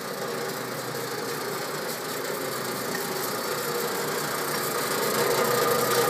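VDF engine lathe running, a steady motor and gear hum that grows slowly louder toward the end.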